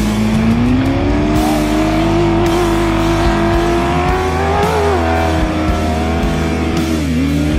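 Off-road truck engine at high revs, its pitch climbing over the first second and then holding, with a short drop and pickup in revs near the end, over background music.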